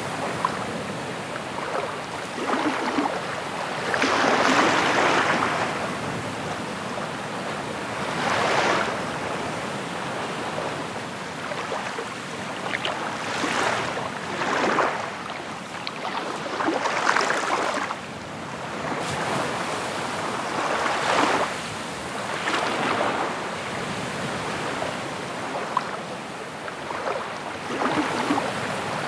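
Waves washing in on a shore: a steady hiss that swells into a louder wash every few seconds, irregularly.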